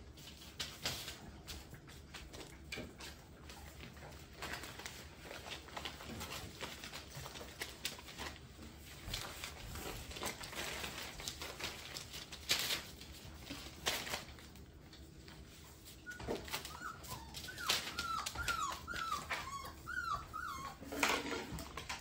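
Bullmastiff puppies at play: scattered scuffles and knocks of paws and toys on the floor, and toward the end a puppy whimpering in a quick string of short, high whines.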